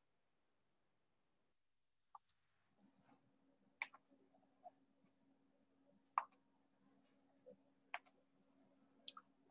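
Near silence: room tone with a faint steady low hum that starts a little way in, and about half a dozen scattered soft clicks, like input clicks at a computer.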